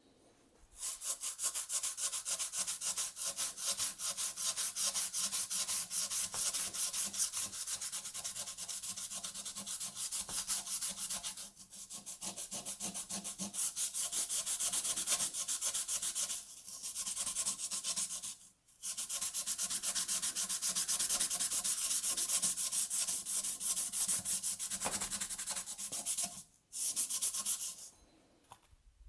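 Sandpaper scrubbing the rusty metal of a Polaris Axys snowmobile exhaust in fast, even strokes, with a few short pauses.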